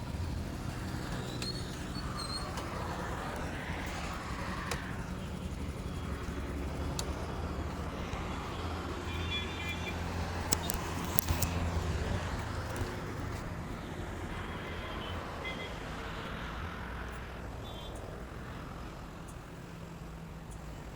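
100 cc motorcycle running along the road with steady engine and wind noise, and other traffic passing now and then. A few sharp clicks come a little past the middle.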